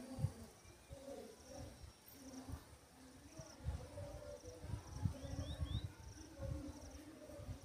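Faint outdoor background: birds and insects chirping, with three short rising chirps about five seconds in, over irregular low rumbles on the microphone.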